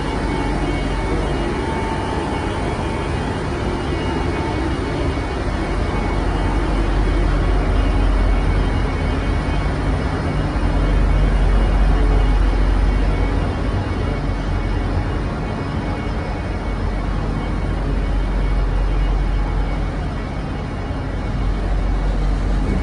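Steady, loud drone of a ship's running machinery: a deep hum over a broad rumble that stays even throughout.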